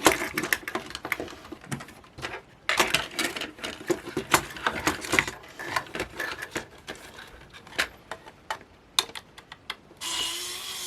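Many small, irregular plastic clicks and taps as a cheap camera's casing and parts are handled and prised apart by hand, while a ribbon cable is worked loose. Near the end a steady hiss lasts about a second.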